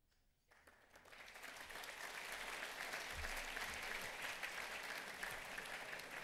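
Audience applauding, starting about half a second in and building quickly, then easing off slightly near the end.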